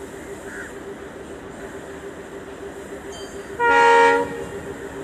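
A diesel train's horn gives one short blast, a little under a second long, about three and a half seconds in, over the steady pulsing hum of a diesel engine running at idle.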